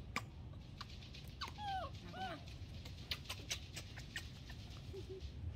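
Baby macaque giving two short, high, arching whimper-like squeals, with a brief lower call near the end. Sharp light clicks and knocks are scattered throughout.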